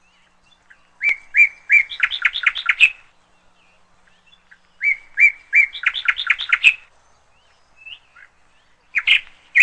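Bird chirping in two matching phrases, each a few spaced notes and then a quick run of notes, with a shorter burst of chirps near the end.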